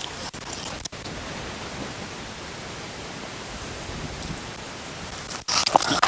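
A steady, even hiss with no distinct events, broken by two brief dropouts, about a second in and near the end.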